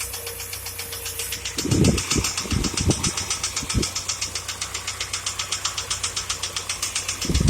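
ZMZ-409 inline-four petrol engine of a UAZ Patriot running at fast warm-up idle with a rapid, even knock keeping time with the engine. The knock set in about a minute after a quiet cold start, before the warm-up idle had dropped.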